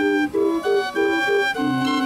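Fairground organ on a carousel playing a tune: a melody over short repeated chords, with bass notes entering near the end.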